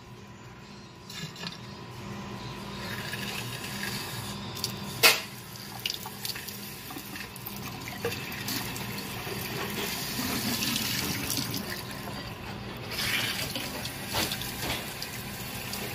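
Water running from a newly installed Moen two-handle kitchen faucet with its aerator removed, the bare stream splashing steadily into the Kohler sink basin after the handle is turned on about a second in. A single sharp knock about five seconds in.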